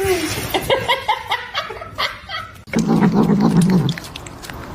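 A person laughing in short bursts, then a low, steady sound for about a second and a half near the end.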